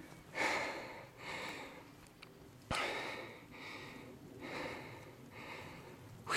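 A person breathing hard close to the microphone, in repeated rushes a little under a second apart, with a single sharp click about three seconds in.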